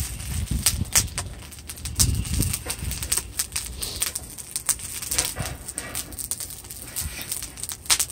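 Lumps of burning charcoal in a forge's fire pot clinking and crackling as a steel bar is pushed in among them, in sharp, irregular clicks.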